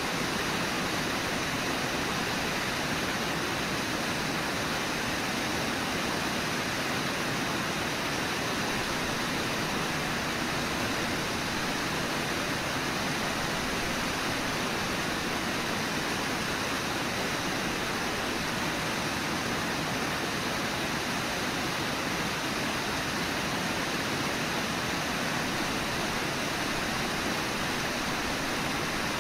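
Steady rush of the Brooks River's flowing water, an even, unbroken wash of noise.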